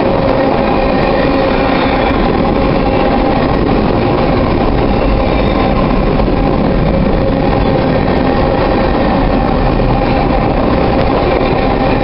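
Freight train of covered grain hopper cars rolling past at close range: a loud, steady, unbroken noise of steel wheels on rail, with a steady tone running through it.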